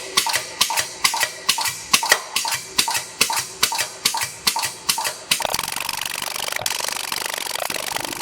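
Power hammer striking hot steel at a steady rate of about three blows a second as the bar is drawn down. About five seconds in, the separate blows give way to a steady, rapid clatter.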